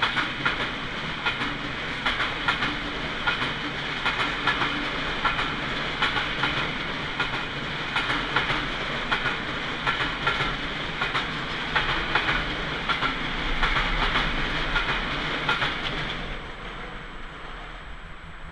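Empty container freight wagons rolling past at close range, their wheels clicking over the rail joints in a repeated rhythm over a steady rolling noise with a thin high whine. The sound falls away about sixteen seconds in as the end of the train passes.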